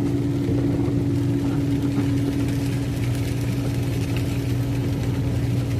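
Steady drone of a semi truck's diesel engine and road noise heard inside the cab while driving, with constant low tones and an even level.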